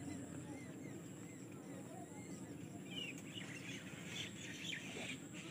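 Birds chirping, a short call repeated about every half second with a sharper call about three seconds in, over a steady low outdoor background noise.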